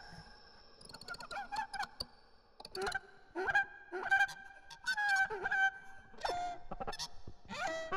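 Daxophone, its bowed wooden tongues giving a string of short calls that bend and slide in pitch, about seven of them, starting about a second in.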